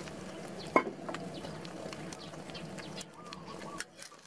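Hot oil sizzling and crackling around an egg omelette frying in a wok, with one sharp metal clink from the steel spatula under a second in. Birds call in the background.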